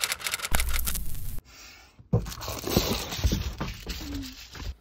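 Crinkling and rustling of a foil bubble-insulation window cover being handled and taken down, with irregular clicks and scrapes. There is a short lull about a second and a half in.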